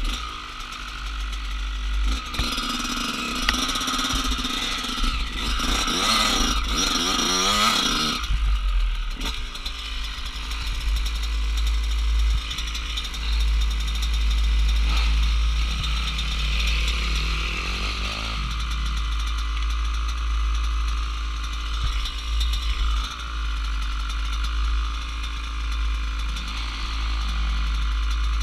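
Off-road motorcycle engines running and revving. The first several seconds are busy with engine pitch sweeping up and down, then other bikes' engines rise and fall over a steady low rumble.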